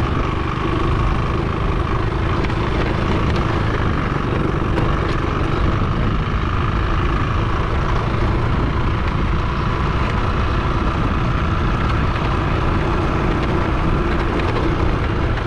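Motorbike engine running at a steady speed while riding, with a constant hum and wind and road noise.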